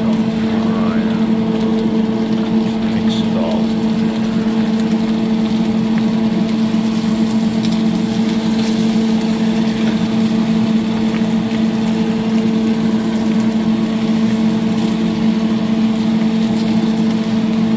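A small motor or fan humming steadily on one low tone with its octave, with a few faint clicks and scrapes from a spatula stirring potatoes in a nonstick pan.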